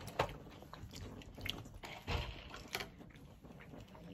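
Quiet eating sounds: chewing, with a few light clicks of a fork against food and containers.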